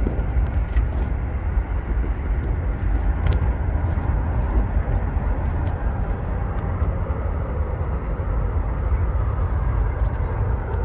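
Steady low rumble of passing vehicles, with a rushing hiss above it and a few faint clicks, unbroken throughout.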